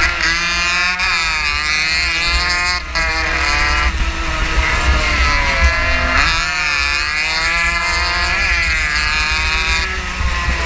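115 cc racing motorcycle engine running hard at high revs, its pitch dropping off into the corners and climbing again as the throttle opens, several times over. Wind buffets the microphone underneath.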